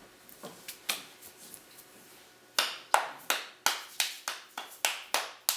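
Powder-covered hands clapping together to knock off the dry bath-bomb mix of baking soda, citric acid and cornstarch. A few soft pats come first, then from about halfway a quick run of sharp claps, about three a second.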